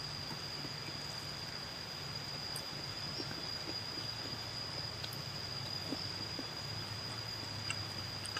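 An insect trilling steadily on one high pitch, over a low background hum, with a few faint clicks and ticks of hands handling food and chewing.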